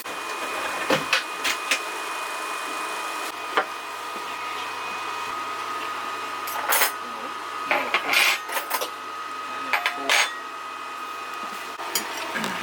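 Dishes and cutlery clinking and knocking in scattered bursts as food is served up, over a steady hum.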